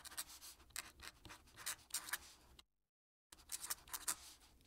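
Fountain pen nib scratching faintly across paper in short, quick strokes as cursive is written, with a brief dead-silent break a little past halfway.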